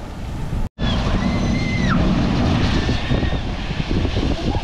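Ocean surf rushing, with wind buffeting the microphone and a few thin, high whistling tones over it. The sound drops out briefly less than a second in.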